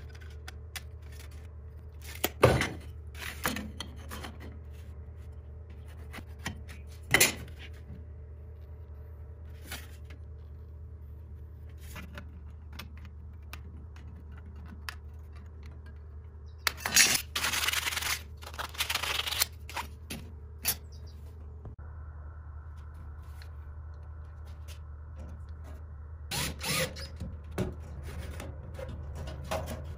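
Scattered clicks, knocks and scrapes of thin sheet metal and hand tools being handled on a workbench, with a denser burst of cutting and scraping from aviation snips on the sheet metal a little past the middle. A low steady hum runs underneath.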